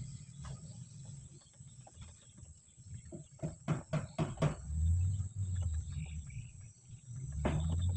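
A 2B pencil rubbed quickly back and forth over paper pressed onto a car engine's stamped engine number, a run of about six short scratching strokes about three seconds in, over a low rumble.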